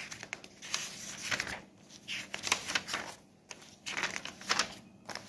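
Paper pages of a workbook being leafed through and turned by hand, rustling and flapping in a few short bursts.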